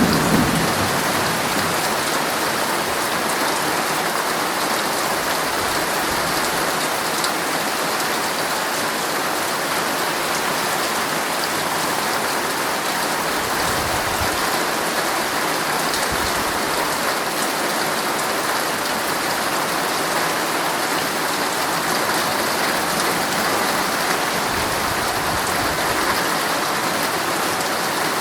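Heavy rain drumming steadily on a tent's fabric, a dense, even patter with a brief low thud at the very start.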